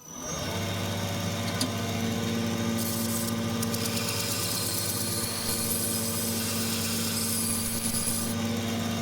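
Belt grinder running at a steady speed, with a scissor blade held against the moving belt. The hiss of the blade on the belt is strongest from about three seconds in until near the end.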